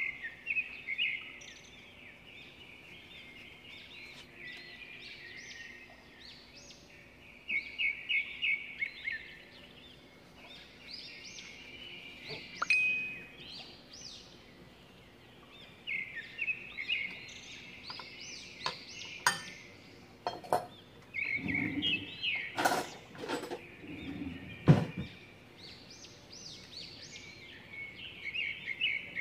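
Small birds chirping and twittering in repeated bursts. About two-thirds of the way through come a few clicks and knocks of handling, the loudest a single sharp knock.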